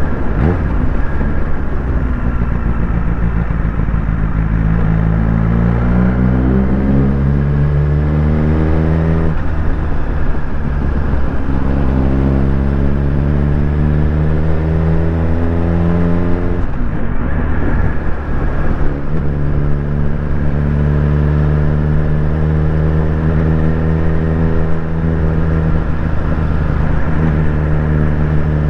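Suzuki GSX-R1000's inline-four engine under way on the road. Its note rises over the first several seconds, dips briefly about nine seconds in, breaks off around seventeen seconds, then holds steady. Throughout there is a steady rush of wind and road noise.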